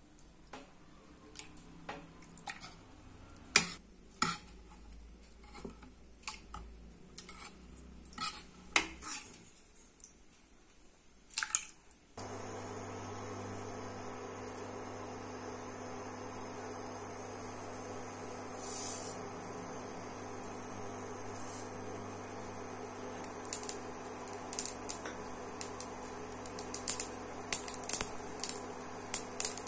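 A stainless steel potato masher knocking and scraping against an aluminium pressure cooker, mashing cooked toor dal and tomato, for about the first twelve seconds. Then a steady hum sets in, and in the last few seconds mustard and cumin seeds in hot oil in a kadai start crackling and popping in quick clicks.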